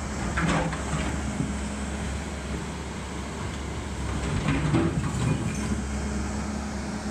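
Volvo tracked excavator's diesel engine running steadily, with two short spells of clattering, about half a second in and again around four and a half seconds in.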